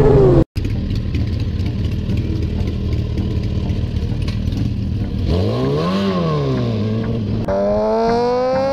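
Motorcycle engine running at low revs, revved up and back down once about six seconds in, then pulling away with its pitch climbing steadily near the end. A short, loud falling tone cuts off half a second in, just before the engine sound begins.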